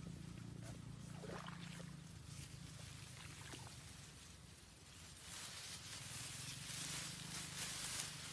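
Ripe rice stalks rustling as a bundle is gathered and handled by hand, the rustle growing louder about five seconds in, over a faint steady low hum.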